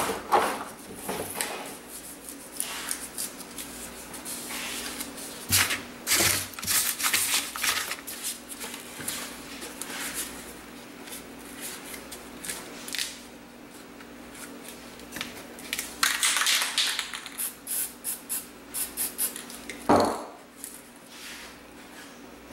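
Paper and a stencil frame being handled on a wooden worktable: rustling, scraping and many short clicks, over a faint steady hum. A brief hiss comes about 16 seconds in and a sharper knock about 20 seconds in.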